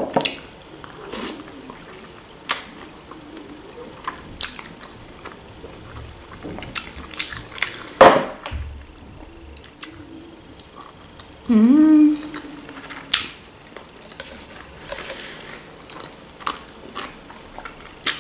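Close-miked eating: chewing and wet mouth smacks over a mouthful of sausage and boiled pasta, with scattered sharp clicks. About twelve seconds in comes a brief hum of the voice, rising in pitch.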